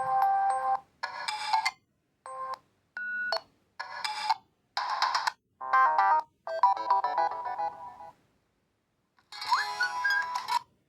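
Built-in tones of a Reeder P13 Blue 2021 smartphone played one after another: about nine short electronic melodies and chimes, each cut off abruptly after a second or less before the next begins, with a slightly longer gap near the end.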